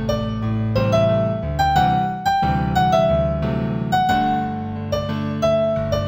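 New-age piano music in G major: a slow, gentle melody of single notes over held low chords.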